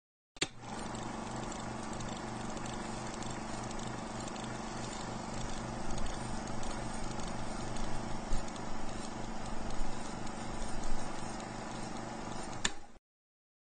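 Film projector sound effect: a steady mechanical whirr with an even, fast clatter, cut in and out abruptly with a click at each end.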